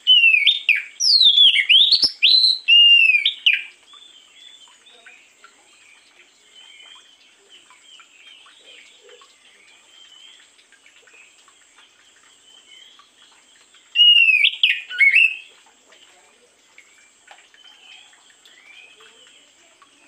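Oriental magpie-robin (kacer) singing: a loud run of clear whistled phrases, several sliding down in pitch, for the first three and a half seconds, and a second shorter burst about fourteen seconds in, with faint scattered chirps between.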